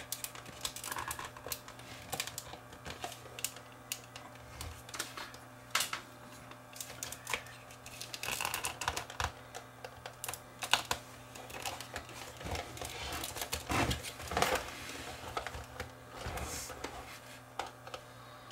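Irregular plastic clicks, taps and short scrapes of hands handling and prying at a JVC camcorder's plastic viewfinder housing, with a faint steady low hum underneath.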